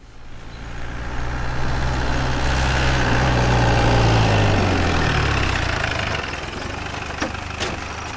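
Jeep engine running as the vehicle drives up, growing louder to a peak about four seconds in, then easing off as it slows and pulls up. Two light knocks follow near the end.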